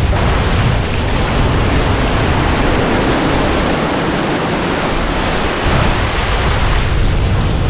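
Surf breaking and washing up a sandy beach, with strong wind buffeting the microphone. The low wind rumble eases for about two seconds midway, leaving mostly the hiss of the wash.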